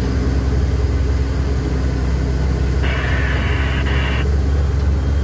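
MAZ timber truck's diesel engine labouring up a grade, going hard, as a steady low drone. A brief higher-pitched noise rises over it about three seconds in and lasts about a second and a half.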